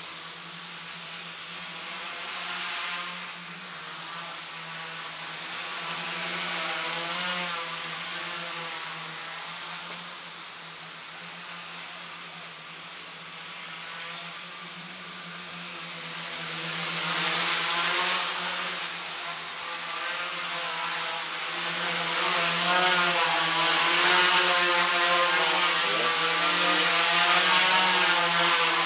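A large tricopter's three DT750 brushless motors spinning 10x4.7 slow-flyer propellers in flight: a whirring buzz of several tones that waver up and down together as the motor speeds change. It grows louder from about halfway through as the craft comes closer.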